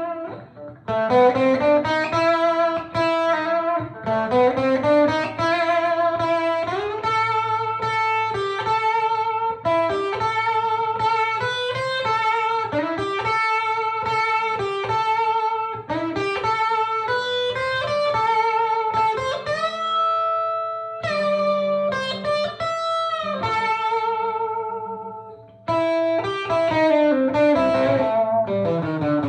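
Electric guitar played through a Mason Dixon tube amplifier in a southern-rock style, with sustained, singing lead notes, string bends up and down and vibrato. Phrases break off briefly about a second in and again near 26 seconds.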